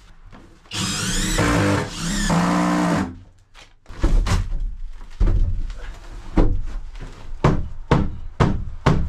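A power drill driving screws into a wooden cleat in two runs of a second or so each, its pitch wavering under load, followed by a string of sharp wooden knocks.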